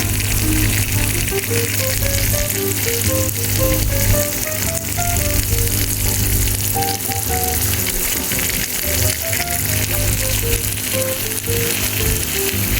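Food frying in hot oil, a steady crackling sizzle throughout, with a light background melody of short stepping notes playing over it.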